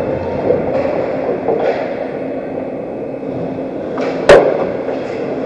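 Ice hockey play at the goal: skates scraping the ice in short hisses over a steady rink hum, then one loud, sharp clack at the net about four seconds in as players reach the crease.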